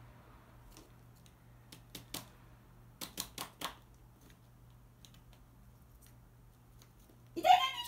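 A few sharp taps from a crow's beak pecking, in two small clusters, then near the end a loud human yelp or scream that rises briefly and falls in pitch as the crow goes for the person's foot.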